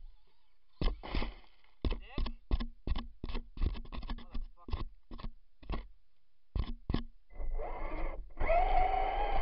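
An electric RC truck's motor and drivetrain, revved in a rapid series of short blips while the truck stays put in the snow. Near the end the motor runs steadily as the throttle is held.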